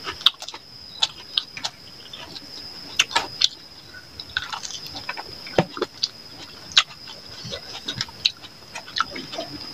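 Close-miked mukbang eating sounds: two people chewing chicken curry and rice and smacking their lips, with fingers working the food, giving irregular wet clicks and smacks several times a second. A faint steady high-pitched whine runs underneath.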